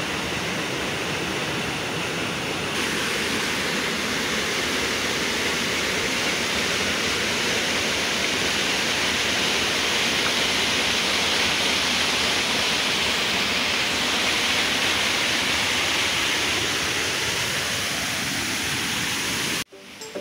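Steady rush of a muddy river swollen by heavy rain, cutting off abruptly near the end.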